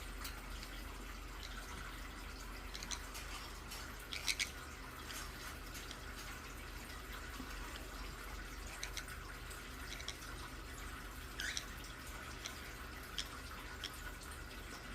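Scattered short, sharp clicks, a few in quick clusters and the loudest about four seconds in, over a steady low hum, with one brief chirp-like sound near the end.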